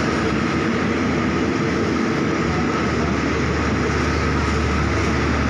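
Passenger coaches of State Railway of Thailand rapid train 107 rolling along the platform, a steady rumble of wheels on rail with a faint constant tone above it.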